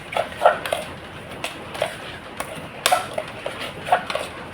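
Scattered sharp clicks and knocks, like dishes and utensils, over a steady hiss, with short indistinct sounds between them.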